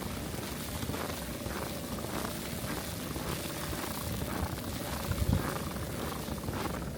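Footsteps crunching through fresh snow, about two steps a second, over a steady rumble of wind on the microphone.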